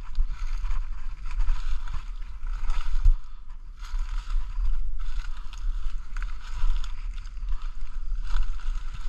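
Footsteps crunching through dry leaf litter and brushing past undergrowth, with a low rumble on a small camera's microphone. There is one sharper snap about three seconds in.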